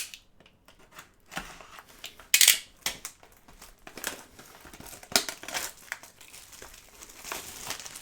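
Trading card packaging being torn open and crinkled in several short bursts, the loudest about two and a half seconds in.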